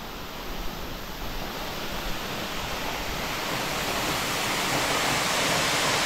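Waterfall rushing, a steady wash of falling water that grows steadily louder.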